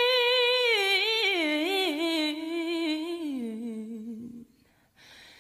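A single unaccompanied singing voice draws out one word in a long melisma. It holds a high note, then wavers and steps down to a low note, and fades out about four seconds in.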